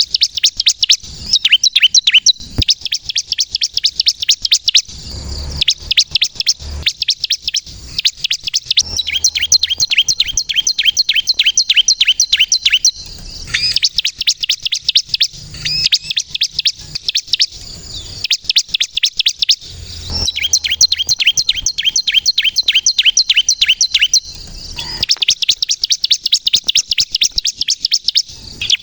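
Ciblek kristal (prinia) singing: long runs of rapid, sharp, high chirps, several a second, broken by short pauses. A few faint low knocks sound under the song.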